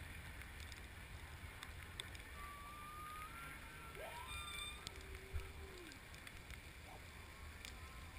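Faint underwater ambience picked up by a camera in its housing during a freedive descent: a low steady rush of water with a few scattered clicks. Several faint whistle-like tones come and go, some rising and some holding level before dropping away.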